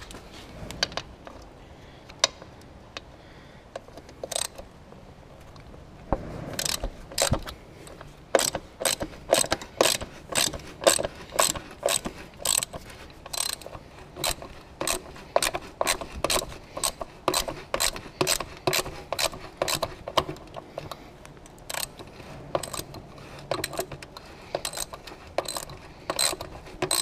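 Hand ratchet clicking as it backs out a bolt: a few scattered clicks at first, then from about six seconds in a steady run of about two clicks a second.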